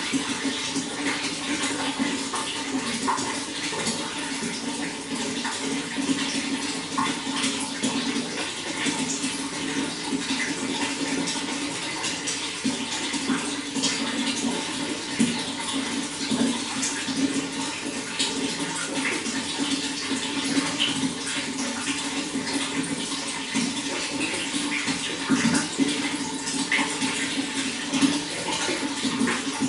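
Running water flowing steadily, with many small splashes.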